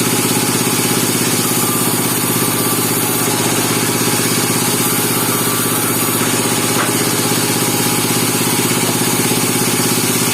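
Engine of a bandsaw sawmill running steadily at an even speed.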